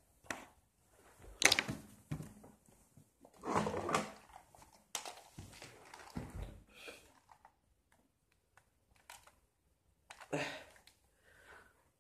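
Handling noise: a string of knocks, thumps and rustles as a plastic toy blaster is picked up and moved about close to the microphone, the loudest knock about a second and a half in.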